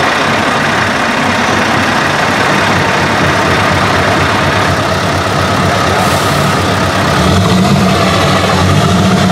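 Scania 770S 16-litre V8 truck engine idling steadily through its open exhaust, getting louder and deeper from about seven seconds in.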